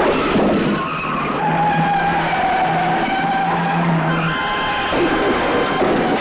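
Small cars driving fast, engines running hard and tyres squealing in long steady squeals through the middle.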